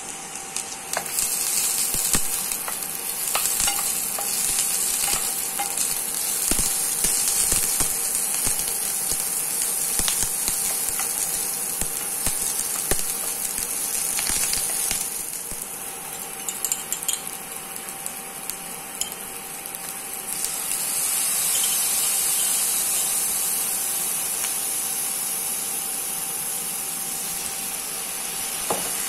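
Sliced onion, carrot, green capsicum and cashews sizzling in oil in a non-stick frying pan, stirred and scraped with a wooden spatula in scattered light knocks. The sizzle grows louder about two-thirds of the way through.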